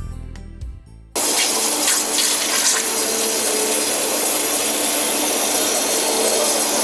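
Brief music fading out, then about a second in a CNC high-pressure water jet starts cutting aluminium: a loud, steady rushing hiss.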